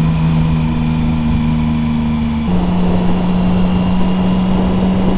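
Triumph Speed Triple's three-cylinder engine running steadily while riding, over wind and road noise. Its note steps up in pitch once, about halfway through.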